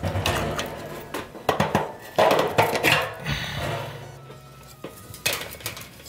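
Gas water heater burner assembly being pulled out through the combustion-chamber opening: irregular metallic clanks, scrapes and rattles of the burner, its gas tube and the pilot tubing knocking against the sheet-metal chamber.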